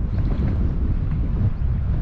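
Wind buffeting the microphone: a steady low rumble of wind noise, with no motor tone heard.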